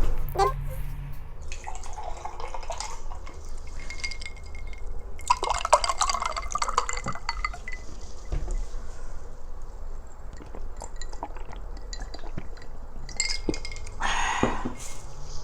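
Liquid splashing in a glass in a few short spells, with scattered clinks of glass and dishware.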